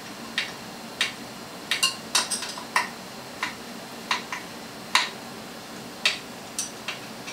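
Irregular sharp metallic clicks and taps, some fifteen of them, as a hex key is worked in the side screws of a 3D printer's frame to loosen them and fit the spool holder.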